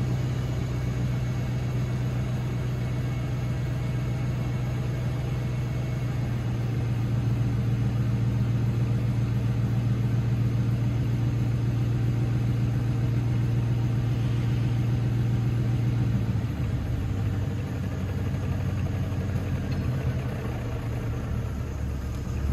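2010 Mercedes E550 coupe's 5.5-litre V8 idling through a resonator-delete H-pipe exhaust after a cold start, a steady deep drone. About sixteen seconds in the note changes, turning lower and less even.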